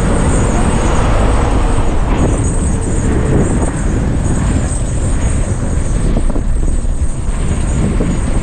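A car driving along the road: a steady rumble of engine and tyre noise.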